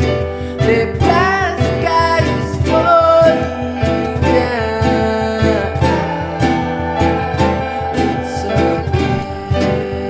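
Background music: a song with strummed acoustic guitar and a singing voice.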